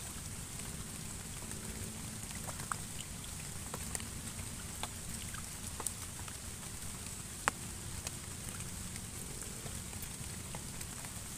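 Steady rain, with scattered sharp ticks and taps at uneven intervals, one louder tick about seven seconds in.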